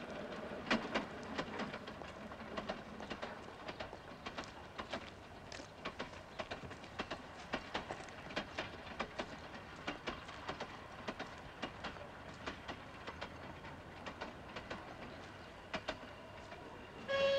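Horse hooves clopping at a walk, with the cart wheels rolling behind: a faint, fairly even clatter of about two or three sharp knocks a second.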